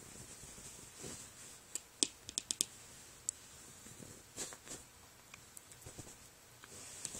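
Fingers scratching and rubbing over a nubby cotton blanket: faint rustling with scattered sharp clicks, including a quick run of about five clicks about two seconds in.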